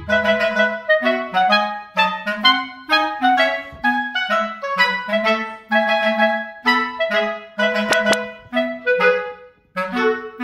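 Background music: a clarinet-led melody of short, quick notes.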